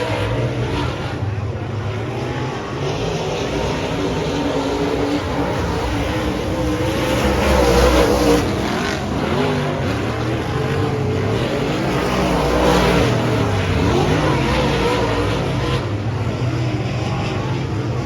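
Several dirt-track race car engines running laps around the oval, their pitches rising and falling together, growing loudest as cars pass about eight seconds in and again a few seconds later.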